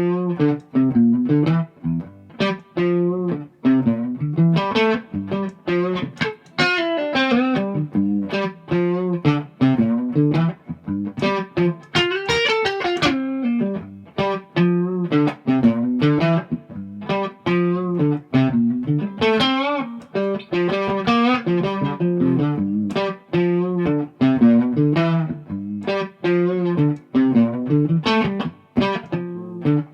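1989 Gibson Custom SG electric guitar played through an amp, a continuous run of picked single-note lines and chords, as a sound sample of the guitar before its setup.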